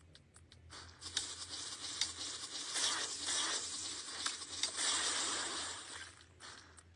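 Soft rustling with scattered light taps and clicks as a kitten paws at a smartphone screen held in a person's hands. A faint low hum sits under it.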